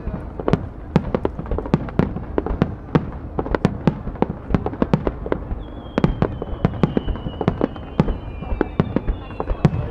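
Aerial firework shells bursting in quick succession: sharp bangs and crackles several times a second. About halfway through, a high whistle slowly falling in pitch joins them.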